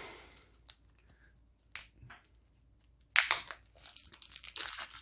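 Plastic wrapping crinkling and tearing as it is pulled off a deck of game cards: a few faint clicks at first, then from about three seconds in a louder run of crackling.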